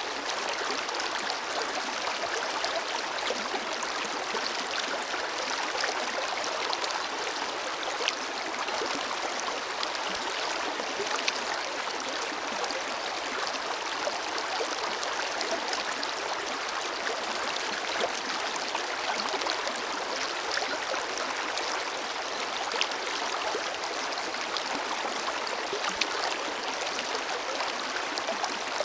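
A forest river flowing steadily over rocks: even rushing water with small splashes and gurgles scattered through it.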